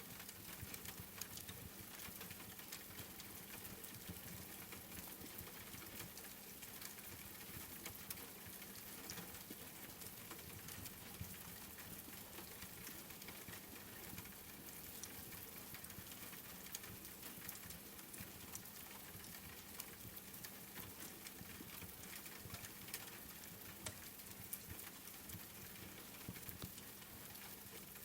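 Steady rain pattering, mixed with the scattered sharp clicks of a wood fire crackling in a fireplace.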